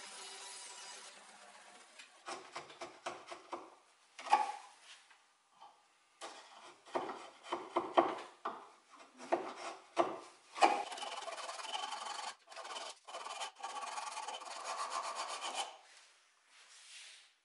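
A band saw runs briefly at the start and winds down. Then a chisel pares the end of a wooden tenon by hand: a quick series of short scraping strokes, followed by several seconds of steadier scraping as the tenon end is shaped round.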